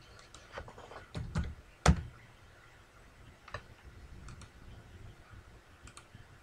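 Computer keyboard keys being typed: a quick run of clicks over the first two seconds ending in one sharper, louder knock, then a few scattered key clicks.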